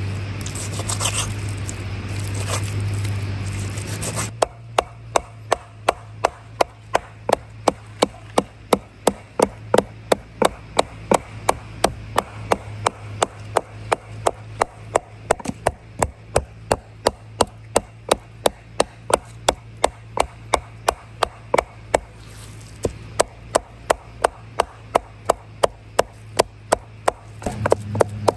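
Knife chopping chicken meat into mince, steady strikes about two to three times a second that start about four seconds in and pause briefly near the end. A rustling, scraping noise comes before the chopping begins.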